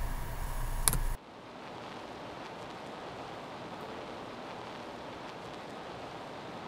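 Low microphone hum and hiss with one sharp click, then, about a second in, an abrupt cut to a steady, even hiss with no other sound.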